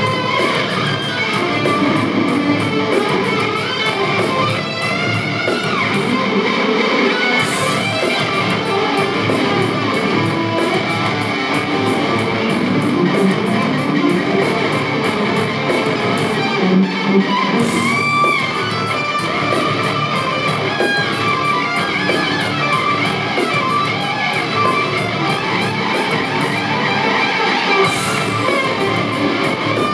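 Live instrumental rock: distorted electric guitars playing fast lead lines with bent and gliding notes over a steady band beat.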